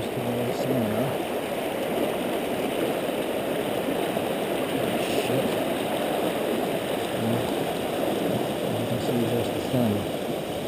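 Steady rush of a fast river current pouring over rocks in whitewater.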